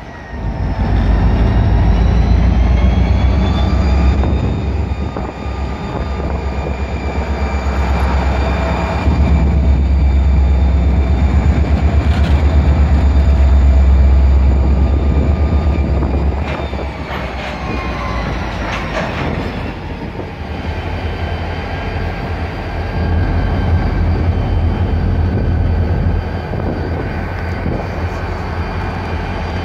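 Diesel-electric freight locomotives of a BNSF consist running past at close range, with a heavy steady rumble and a high whine over it that rises in pitch near the start and falls again a little past the middle. A few sharp knocks from the passing train come through.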